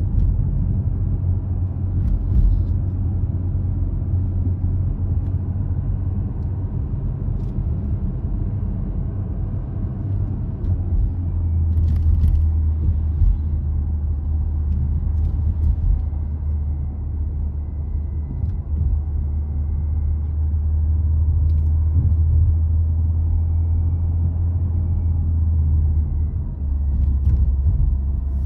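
Car driving along, a steady low engine and road rumble that swells a little about halfway through, with a few faint clicks.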